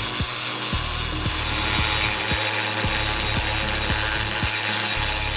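Handheld rotary tool with a small abrasive drum grinding rust off a steel lamp guard ring: a steady high whine over a continuous grinding hiss.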